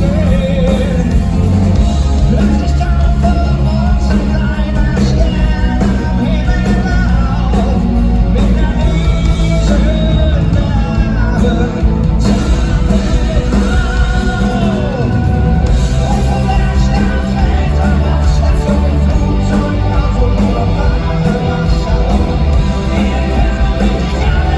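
Live heavy metal band playing loudly with a singer, with yells mixed in.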